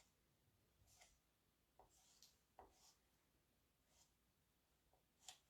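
Near silence with a few faint, short scrapes of a squeegee pulling chalk paste across a silkscreen transfer, the last one about five seconds in slightly louder.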